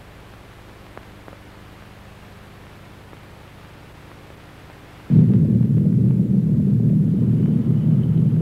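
Faint tape hiss and hum with two small clicks, then a loud, deep rumble that starts abruptly about five seconds in and keeps going: a car's engine and road noise heard from inside the cabin.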